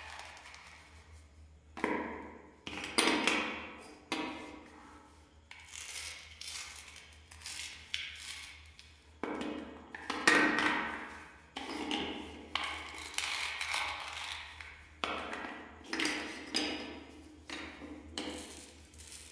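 Hard plastic toy fruit pieces being handled, pressed together and pulled apart: an irregular run of clacks and short scrapes, about one every second or so.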